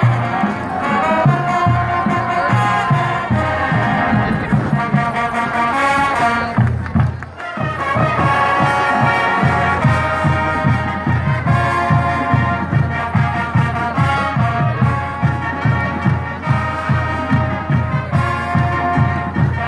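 Marching band playing: brass carrying the tune over a steady drum beat, with a short break about seven seconds in before the drums and horns pick up again.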